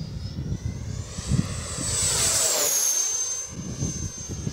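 Whine of the 12-blade 70mm electric ducted fan in an FMS F-16 RC jet flying past. The pitch climbs about a second in, holds high and loud, then drops sharply just past the middle as the jet goes by.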